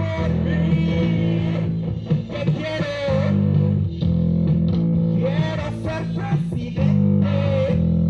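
Rock music with electric guitar and bass: held bass notes changing about every two seconds under a wavering, bending lead line.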